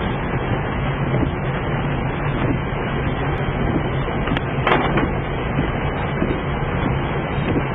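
Car driving on a wet road, heard from inside the cabin: a steady low engine hum under a constant hiss of tyre and road noise, with a short clatter about four and a half seconds in.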